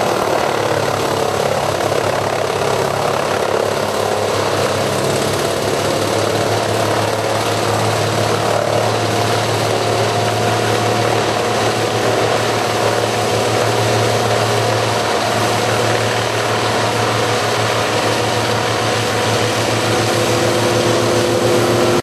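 Fecon RTC22/500 500-horsepower mobile wood chipper running at working speed while chipping whole trees fed in by a grapple, a loud, steady machine drone with an even hum and a dense rush over it.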